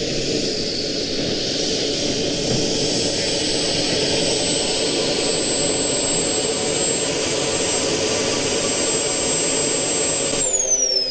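EvoJet 220 model jet turbine in a giant-scale RC Fiat G91 running at idle while the jet taxis, a steady high whine over a rushing exhaust. About ten seconds in, the turbine is shut down and its whine falls away as it spools down.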